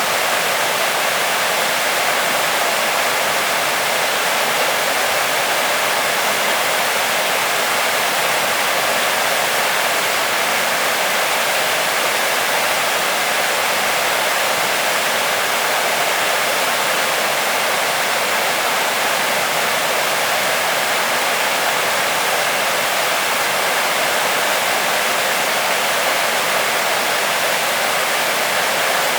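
Waterfall: water falling and splashing with a steady, even rush that does not change.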